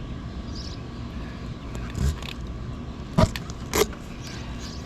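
Dynaplug tyre repair tool working a plug into a puncture in a motorcycle's tubeless tyre: a soft knock about two seconds in, then two sharp clicks a little over half a second apart, over a steady low rumble.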